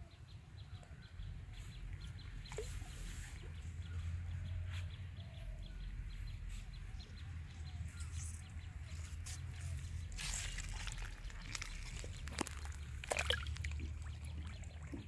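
Outdoor rural ambience: a steady low rumble with faint bird calls, and a few brief rustling noises about ten and about thirteen seconds in.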